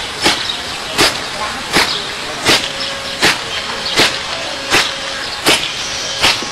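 A man's hand striking down hard onto a concrete bench again and again: a sharp crack about every three-quarters of a second, nine in all, over a steady hiss.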